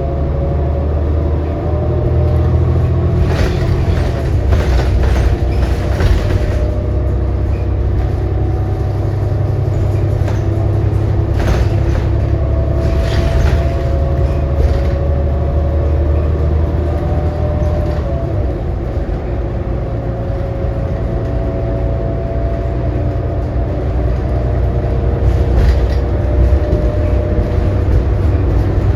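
A New Flyer XD40 transit bus running along with a steady low rumble and a whine that drifts slightly in pitch. Bursts of rattling come through now and then, part of the odd, messed-up sound this particular coach is known for.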